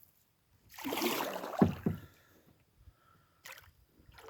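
A kayak paddle stroke sloshing through the water about a second in, ending in a dull knock, then a few faint clicks.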